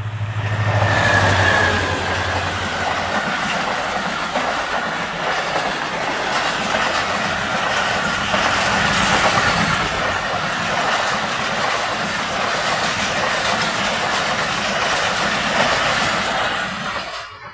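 Diesel-hauled passenger train passing close at speed: the locomotive's low engine drone for the first few seconds, then a long, loud rush of coaches with the wheels clattering over the rail joints. The sound stops abruptly near the end.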